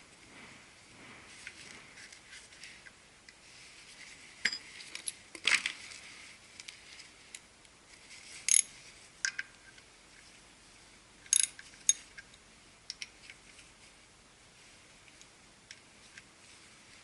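Metal tools and small parts clinking and tapping during hand work, with a few sharper clinks that ring briefly, the loudest about halfway through.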